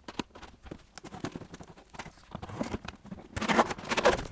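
Cardboard box being opened by hand: a run of small taps and scrapes, then louder rustling and crackling about three and a half seconds in as the flaps are pulled open.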